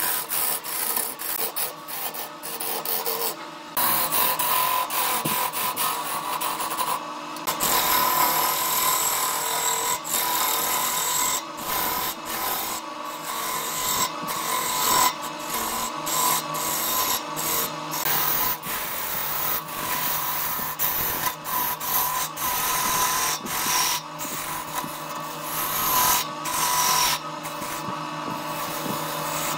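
Hand-held turning tool cutting a spinning wooden vase blank on a wood lathe: a continuous rough scraping hiss of steel shaving the wood, broken by many short gaps, over the steady hum of the lathe.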